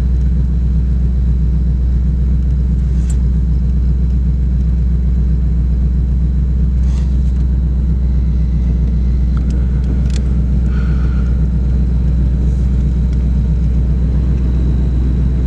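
Steady low engine hum of an idling car, heard from inside, level throughout with a few faint clicks.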